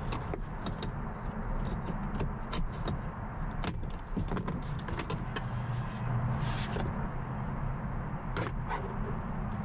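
Clicks and plastic knocks as the center console's plastic side trim panel is worked loose and pulled off, its metal retaining clips letting go, with a short scraping rush about six and a half seconds in. A steady low rumble runs underneath.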